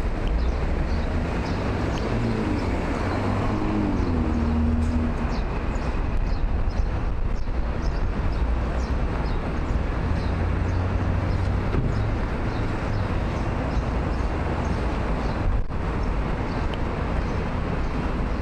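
City street traffic at an intersection: a steady low rumble of passing cars, with one vehicle's engine rising and then falling in pitch a few seconds in.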